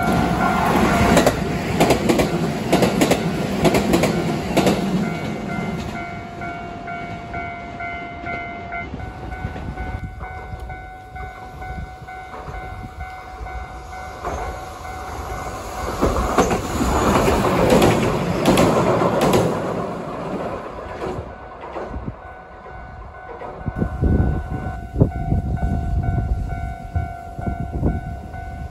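A train running past on rails, its wheels clicking over rail joints, with a steady tone underneath. It swells twice as carriages go by, and there is a run of sharp clicks near the end.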